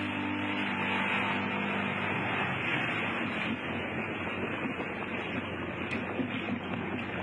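Personal watercraft engine hum that fades out within the first two seconds or so, giving way to a steady rush of water and spray close to the microphone.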